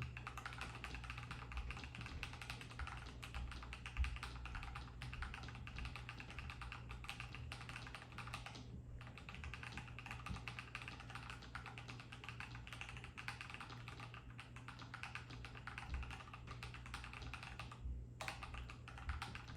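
Fast continuous typing on a Nuphy Halo75 mechanical keyboard with Night Breeze linear switches, dense key clacks with brief pauses about nine seconds in and near the end.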